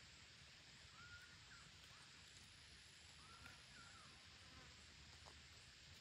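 Faint forest ambience with a steady hiss, and a bird giving a short two-note chirp twice.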